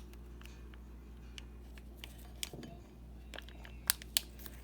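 Light handling sounds of colouring and mixing bath bomb powder: scattered soft clicks and taps of a spoon and small colourant containers, with two sharper clicks near the end, over a steady low hum.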